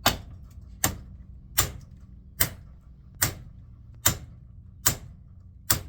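Eight steady, evenly spaced hammer blows, about one every 0.8 seconds, striking a scrap speed reducer motor to knock out its armature. The armature is stuck fast, held in by the motor's magnet.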